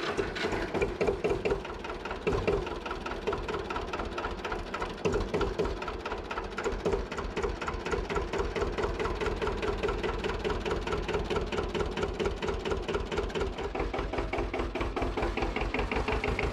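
Lanz Alldog A 1806 tractor's diesel engine idling steadily just after a glow-plug start, with an even, rapid clattering beat.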